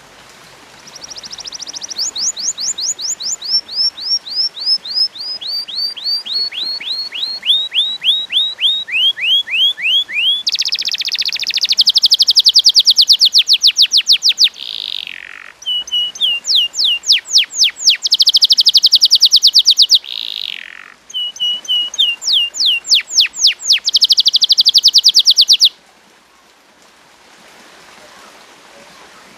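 Domestic canary singing a long song. It opens with a run of quick downward-sweeping notes that step steadily lower in pitch, then goes into fast rolling trills, the loudest part, broken by two short pauses. The song stops abruptly a few seconds before the end.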